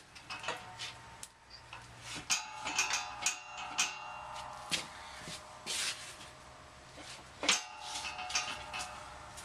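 Irregular metal clanks and knocks as steel parts are shifted into line on a shop press, several of them ringing briefly.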